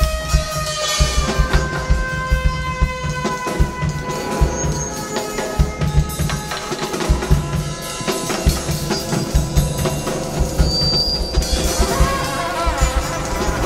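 Live band music: a drum kit keeps up a steady beat while held, slightly sliding tones from a slide brass horn and electronics sound over it.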